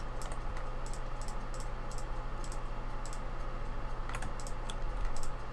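Irregular clicking of a computer keyboard and mouse, over a low steady hum.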